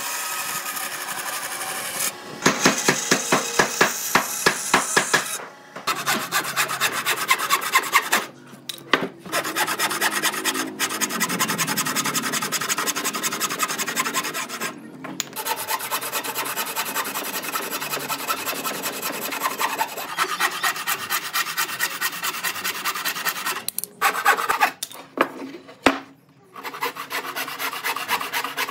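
A tool scraping across wood in quick, even, repeated strokes, stopping briefly a few times.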